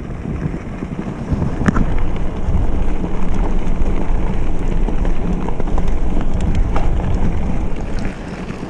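Wind buffeting the microphone of a mountain biker's camera while riding along a gravel trail, a steady heavy rumble with a few faint clicks from the bike and tyres. It grows louder about a second in and eases near the end.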